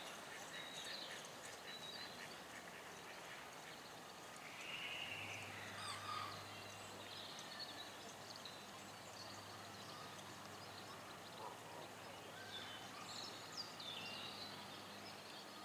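Faint outdoor ambience with scattered short, high bird chirps and calls. A low steady hum comes in about five seconds in.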